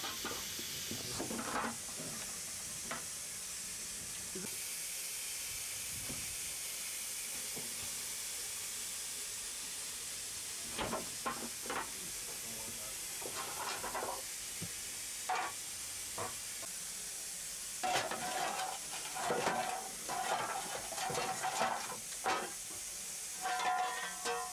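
Steady steam hiss on a steam locomotive's footplate. From about ten seconds in, intermittent short metallic knocks and scrapes join it.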